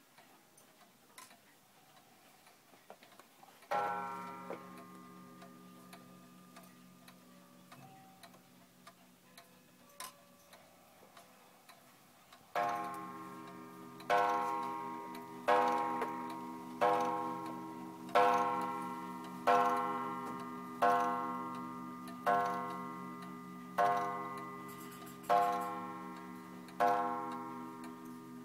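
R & A pendulum wall clock ticking, then striking. It gives one ringing strike about four seconds in. From about halfway through it strikes about eleven times, roughly one and a half seconds apart, each strike ringing on and fading.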